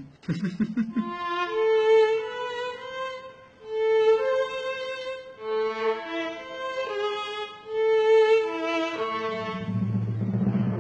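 Solo violin playing a slow melody of long held notes. A low steady sound comes in near the end.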